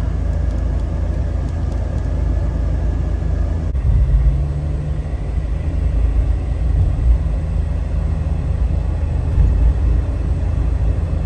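Car cabin noise at motorway speed: a steady low rumble of tyres on the road and the engine, a little heavier after about four seconds.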